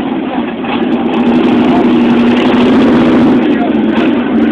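Slow cruise traffic of cars rolling past close by with engines running; a steady engine drone swells louder about a second in as a car passes.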